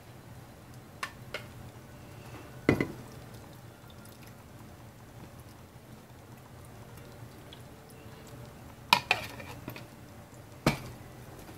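A metal spoon scraping and knocking inside a plastic cup, with clinks of dishes, as the liquid mixture is scraped out over bread in a glass baking dish. A handful of separate sharp clinks with quiet gaps between, over a faint low hum.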